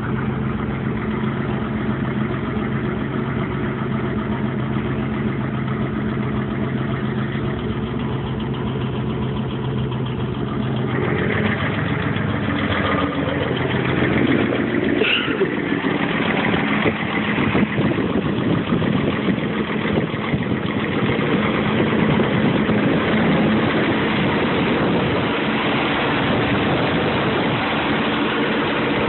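Car engine running steadily with a ticking, knocking noise in it, the fault the owner is recording. About eleven seconds in the sound changes, turning rougher and a little louder.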